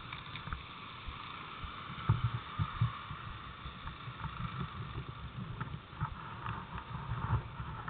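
Handheld camcorder being moved about: irregular low rumbles and bumps from handling and wind on the microphone, over a steady faint hiss.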